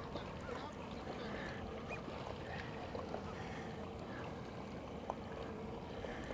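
Boat engine running low and steady under wind and water noise, with a few faint, brief higher-pitched sounds over it.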